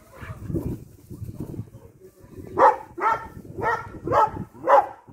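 A dog barking five times in quick succession, about two barks a second, after a couple of seconds of low muffled noise.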